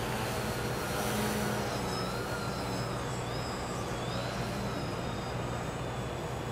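Small RC foam airplane's motor and propeller whining in flight, the pitch rising and falling as the throttle changes, over a steady low hum.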